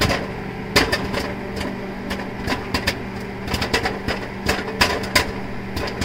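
Popcorn kernels popping in a paper bag inside a running microwave oven: irregular sharp pops, about two or three a second, over the oven's steady hum.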